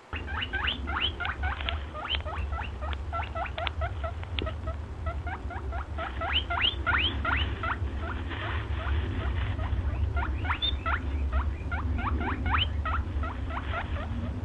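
Small rodents squeaking: many quick rising squeaks, several a second, coming in clusters over a steady low rumble.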